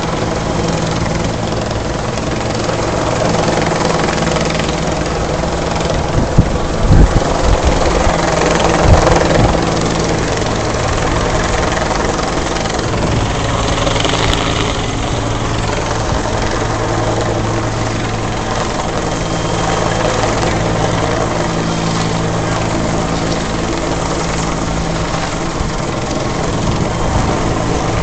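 Helicopter flying overhead, its engine and rotor droning steadily. A few loud bumps on the microphone come about six to nine seconds in.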